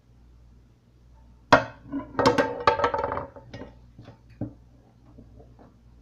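Drinking glasses and dishes clinking and knocking against each other and the stainless steel sink while being washed by hand. A sharp clank comes about a second and a half in, then a flurry of ringing clinks, then a few lighter knocks.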